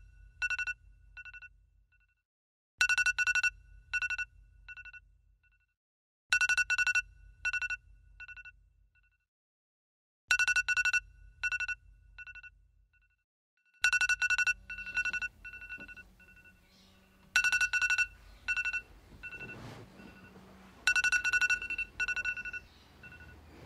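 Mobile phone ringtone ringing seven times, about every three and a half seconds. Each ring is a short burst of bright electronic tones that trails off in fading repeats.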